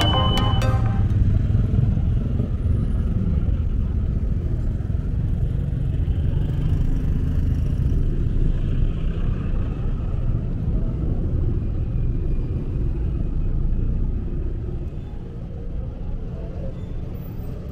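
City street traffic ambience: a steady low rumble of passing road vehicles, easing off a little near the end.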